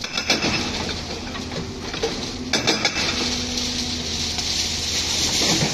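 Demolition noise: broken concrete and brick clattering and knocking in scattered hits, with a cluster of knocks about two and a half seconds in, over a steady low rumble.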